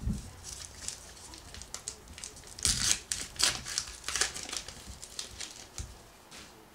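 A pack of baseball cards torn open by hand: the paper wrapper rips and crinkles in a run of quick crackles, loudest about three seconds in.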